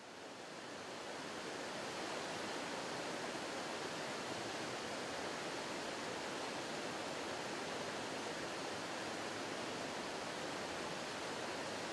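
Rushing river water running over rocks in shallow rapids: a steady, even roar that fades in over the first two seconds.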